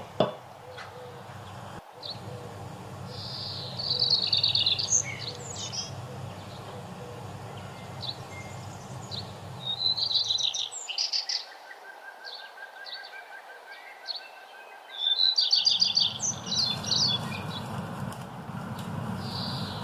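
Birds chirping, with bursts of quick high trills a few times, over a low steady hum that drops out for a few seconds midway.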